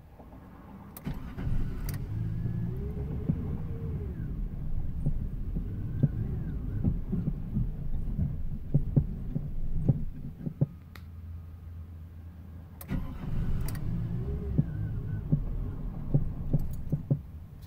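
Pickup truck engine being cranked by the starter in two long attempts, about ten seconds and then four seconds, turning over with an uneven rumble and knocks but not catching.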